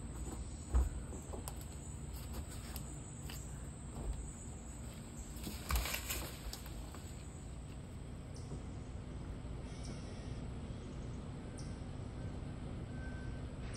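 Outdoor city ambience: a steady low background rumble, with a soft thump about a second in and another near six seconds with a brief hiss.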